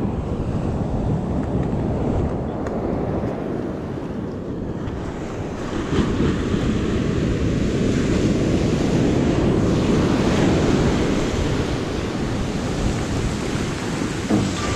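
Ocean surf breaking and washing up a sandy beach, a steady rush that gets louder about six seconds in, with wind buffeting the microphone. Near the end, foamy whitewater washes in around wading boots.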